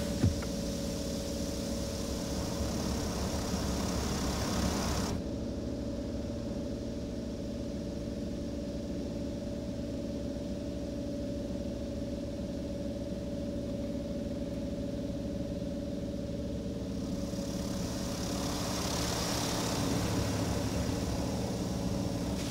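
High-pressure water spray from a Mark VII ChoiceWash XT touchless car wash hitting the car, heard from inside the cabin. The spray cuts off abruptly about five seconds in, leaving a steady low hum. It comes back, growing louder, over the last few seconds.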